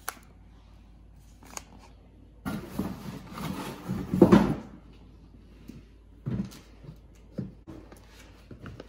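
Plastic seed pouch rustling and crinkling as it is handled, in a burst of about two seconds a few seconds in, followed by a couple of light knocks.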